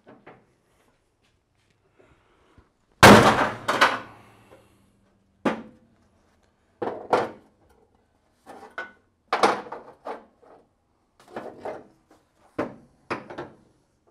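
A heavy hammer strikes a solid steel round bar braced against a Porsche 911's front suspension pan, about fifteen blows at an uneven pace. The first blow, about three seconds in, is the loudest and leaves the body shell ringing. The blows are knocking the tack-welded pan down to take a 3–4 mm twist out of it before final welding.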